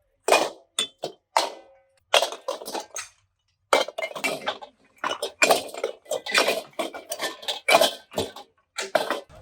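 Irregular clanking and clattering of metal parts striking one another, a quick run of hits with a short pause about three seconds in, some ringing briefly.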